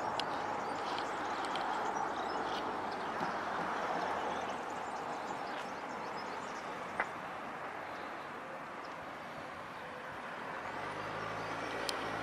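Street traffic at a roundabout: a steady hiss of cars and tyres going by, with a vehicle engine coming closer near the end.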